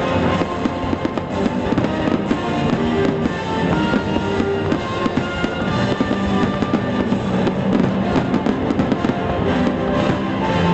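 Fireworks bursting and crackling in quick succession over loud music with a rock-like beat.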